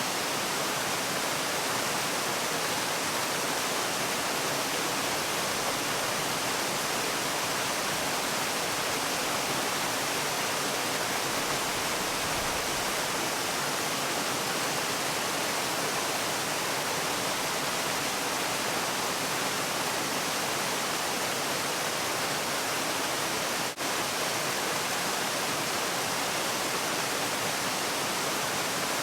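Waterfall, a steady, even rush of falling water with a momentary drop in level about 24 seconds in.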